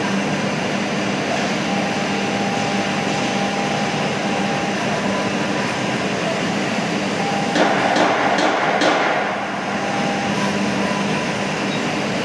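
CNC router spindle running steadily as it cuts MDF: a dense hiss with a steady hum under it. About seven and a half seconds in, a louder stretch of about a second and a half carries four sharp clicks.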